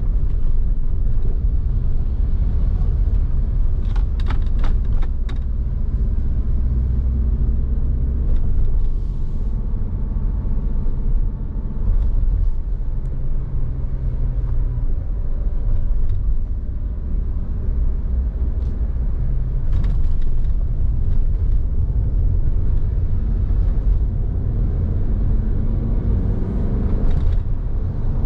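Road traffic heard from a moving vehicle: a steady low rumble of engine and tyre noise, with a few brief clicks about four seconds in.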